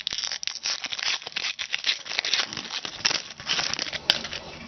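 Foil wrapper of a basketball trading-card pack crinkling and crackling as it is handled and opened by hand, with a single sharp click about four seconds in.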